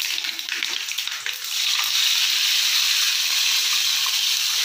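Mustard seeds and cumin sizzling in hot oil in a kadai. About a second and a half in, the sizzle turns into a louder, steady hiss as water is poured into the hot oil.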